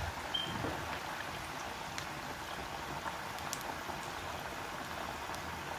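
Chunky potato chips deep-frying in a pot of hot oil: a steady bubbling sizzle with a few faint pops.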